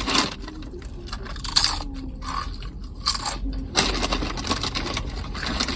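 Biting into a Subway sandwich and chewing it, with irregular crunchy, crackly mouthfuls.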